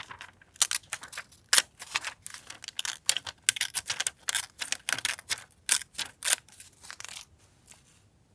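Paper being handled by hand: a run of irregular, crisp rustles and crinkles that stops about seven seconds in.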